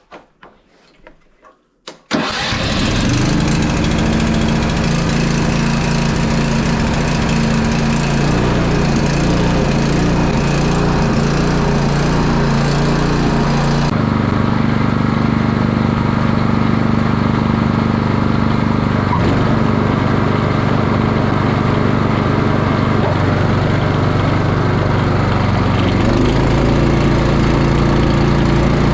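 Honda HSS928A tracked snowblower engine comes on suddenly about two seconds in and then runs steadily at working speed. Its sound changes about halfway through, and its pitch steps up slightly near the end.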